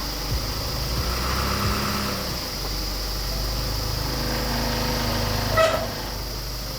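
Truck engine idling with a steady low rumble, under a steady high drone of summer insects. A brief, sharp pitched sound stands out about five and a half seconds in.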